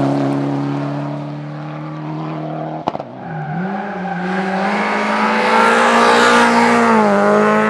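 Rally car engines at high revs. A steady engine note fades away, then a sharp click comes about three seconds in. After it a strong engine note rises in pitch as a car accelerates, with a brief drop in pitch near the end.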